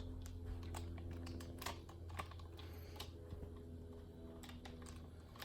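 Small screws being driven by hand with a hex driver into a plastic RC truck chassis: faint, irregular clicks and taps, over a low steady hum.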